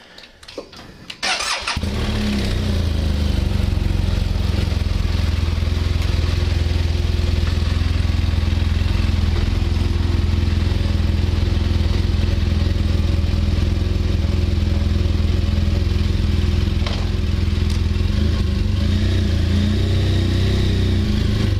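BMW R1200GSA boxer-twin engine started with a short burst of the electric starter about a second in, catching at once and then idling steadily.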